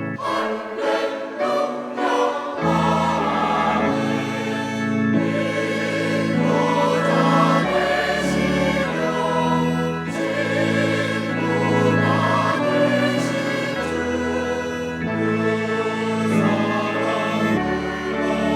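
Church choir singing a hymn anthem in parts over an instrumental accompaniment, its low bass notes held and changing every second or two.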